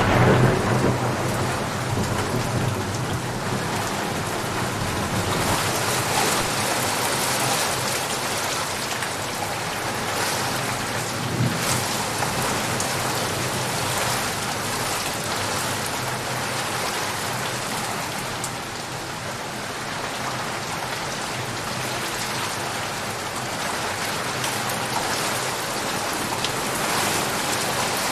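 Steady rain falling, with a rumble of thunder dying away at the start.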